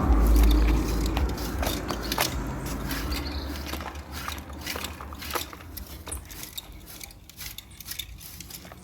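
A heavy low rumble on the microphone for the first few seconds, fading out, with many scattered short clicks and light rustles throughout.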